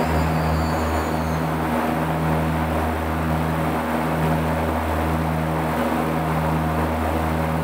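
Goodyear blimp's propeller engines running at a steady low drone, with a slow pulsing about once a second.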